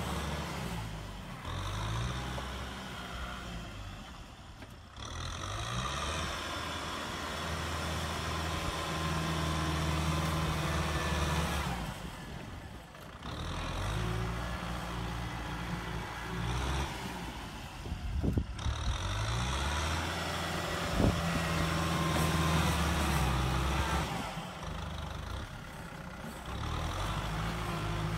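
Kubota M6040SU tractor's diesel engine working under load as the tractor shoves wet mud with its front blade. The engine speed rises and falls repeatedly, easing off about four times, with a couple of short knocks in the middle.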